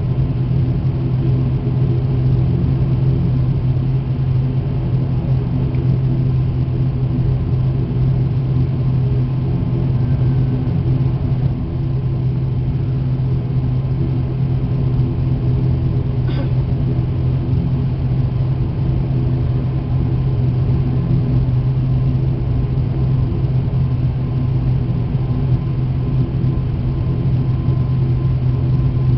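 Turboprop engine and propeller running steadily while the airliner taxis, heard from inside the cabin: an even drone with a strong deep hum that holds the same pitch throughout.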